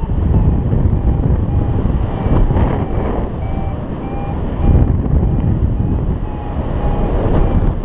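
Paragliding variometer beeping in short, evenly spaced beeps at one pitch, about two a second, the audio signal that the glider is climbing in lift. Heavy wind rush on the camera microphone underneath.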